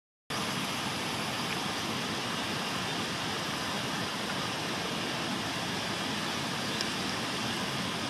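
Steady, even rushing background noise outdoors, with no clear call from the sparrow.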